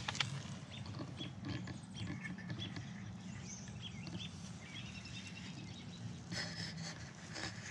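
Small birds chirping in short scattered calls over a steady outdoor background hum, with a few brief rustling clicks near the end.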